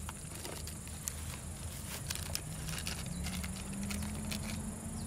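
Faint plastic clicks and rustles from hands handling a stack of fibre-optic splice trays and fastening a strap around it. Under them runs a steady low hum whose pitch rises a little about halfway through, then holds.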